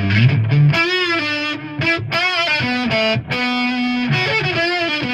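Electric guitar, a Fender Stratocaster through a Big Muff fuzz pedal into a valve amp, playing a sustained single-note lead line with string bends and vibrato.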